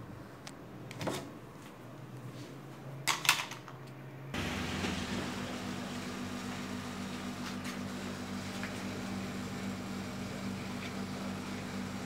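A faint low hum with a few knocks, the loudest a brief clatter about three seconds in; then, abruptly about four seconds in, the outdoor unit of a 0.5-ton R22 LG split air conditioner running, a steady hum over an even rush of fan noise.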